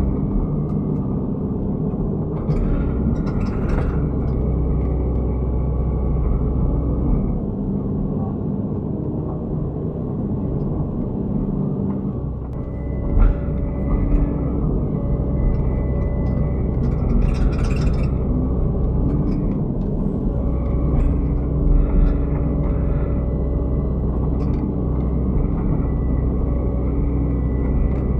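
Excavator diesel engine running steadily under work. Its low note drops back for a while mid-way and then comes up again as the hydraulics are loaded, with a few short knocks near the middle.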